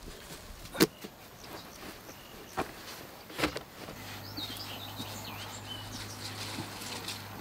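Melon harvesting among the vines: a few sharp snaps and rustles in the first half, the loudest about a second in, as a melon is handled and picked. Then birds chirping over a faint, steady low hum.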